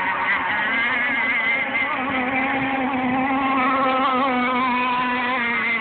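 Radio-controlled gas sport hydro racing boats' two-stroke engines running flat out, a continuous buzzing whine whose pitch wavers up and down as the boats run the course.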